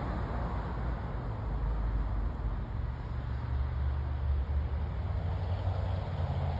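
Low, steady rumble of a freight train moving away down the track.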